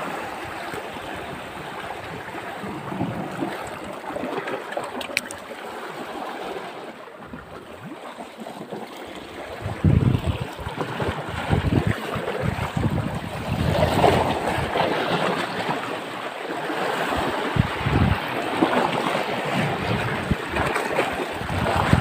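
Sea waves washing over the rocks of a shallow reef, with wind buffeting the microphone in gusts from about ten seconds in.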